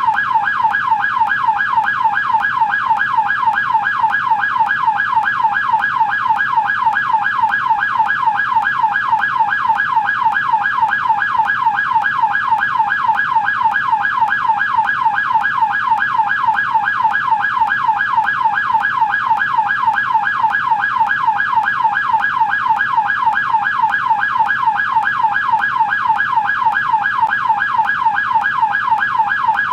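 American police car siren in its yelp tone, rapidly sweeping up and down about three times a second, steady and unbroken.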